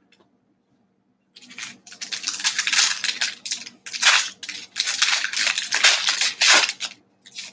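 Foil wrapper of a Select football trading card pack being torn open and crinkled by hand: a run of crackling rustles starting about a second and a half in, in uneven surges, dying away near the end.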